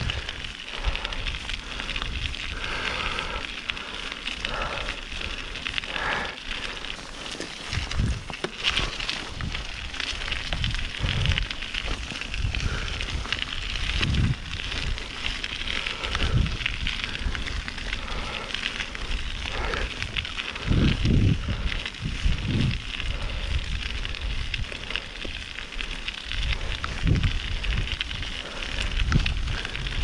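Mountain bike being ridden, heard from the bike-mounted camera: a steady crackling noise of tyres and wind, with irregular low thuds from bumps in the trail.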